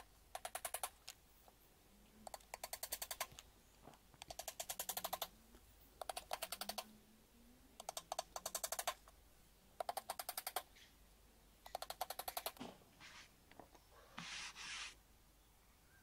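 Small hammer tapping panel pins through a plywood base into a wooden bird box: seven quick runs of rapid light taps, about two seconds apart, then a few stray ticks and a short rustle near the end.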